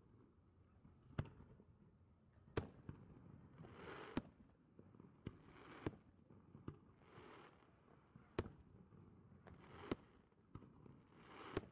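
Aerial fireworks shells bursting: about seven sharp bangs, roughly one every second and a half, with smaller pops between them and hissing swells that rise and fade between the bangs.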